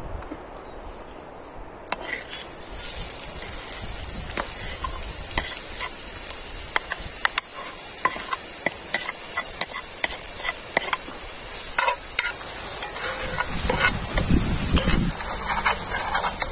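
Food sizzling in a frying pan on a wood-burning stove, with a utensil stirring, tapping and scraping against the pan. The sizzle starts about two seconds in.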